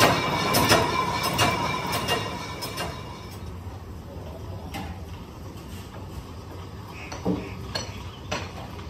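Metal lathe cutting a cast-iron tractor rear axle housing: a steady machining whine with rapid rattling and clinking that stops about three seconds in. After that come quieter workshop surroundings with a few scattered metal clanks.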